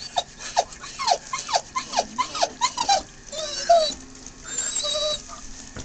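Litter of 24-day-old German Shorthaired Pointer puppies whimpering and squealing as they crowd around shared food pans: a quick run of short falling squeaks, about three a second, then a few longer whines near the end.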